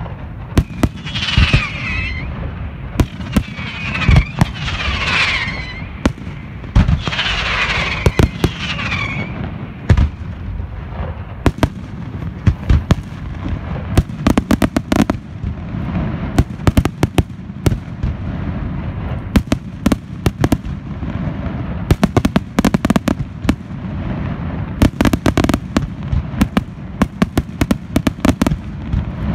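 Aerial fireworks display: shells bursting in quick succession with many sharp bangs. Over roughly the first nine seconds, falling whistling tones sound among the bangs. Later the bangs come in dense, rapid clusters.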